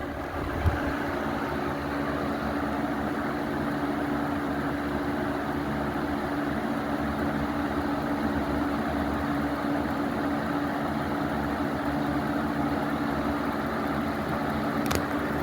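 Lakewood Model 200 box fan with plastic blades running steadily on medium speed: a motor hum under an even rush of moving air. A brief click comes near the end.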